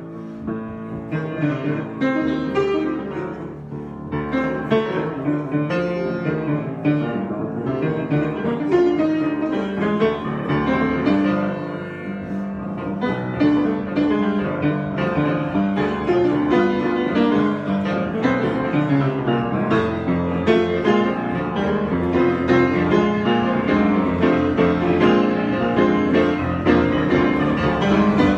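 Solo piano improvisation, many notes played in a continuous flow.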